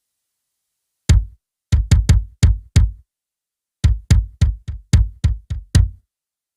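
Trig Mic Laser Pick drum trigger playing its built-in factory kick drum sound, recorded direct to line with no room sound. Six hits, a short pause, then a faster run of eight; each is a deep thud with a sharp click at the start.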